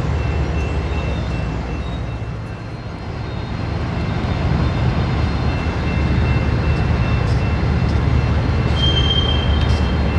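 Freight train rolling on the rails: a steady low rumble of wheels and cars, with faint high squeals now and then. The rumble dips briefly about two and a half seconds in, then builds back up.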